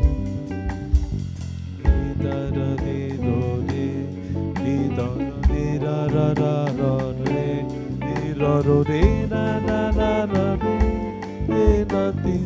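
Live small-band music: guitar, bass and drum kit playing together, with a melody line moving above them.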